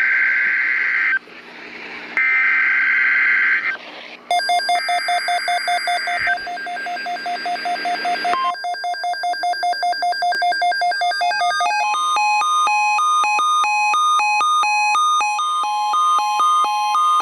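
Emergency Alert System SAME header data bursts from a weather radio broadcast: three harsh digital screeches about a second long each. Overlapping the last one, an electronic alert tone starts beeping rapidly, and about 12 seconds in it changes to a busier pattern of pulsing beeps over a steady tone.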